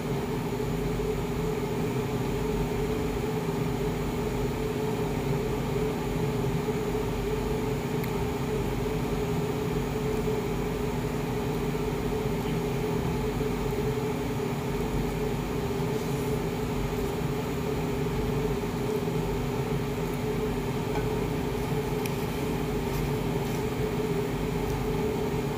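Steady machine hum from a running household appliance, a constant low drone with a few fixed tones, with a few faint light clicks now and then.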